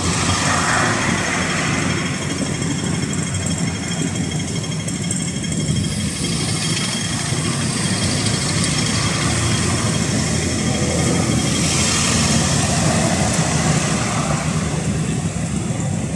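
Road traffic: car and truck engines running and passing in a steady wash of street noise.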